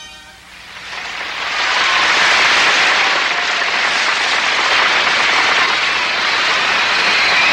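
Large crowd applauding and cheering, swelling up over the first two seconds and then holding steady.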